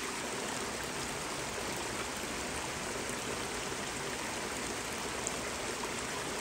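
Rain falling on a river's open water: a steady, even hiss of many small drops hitting the surface.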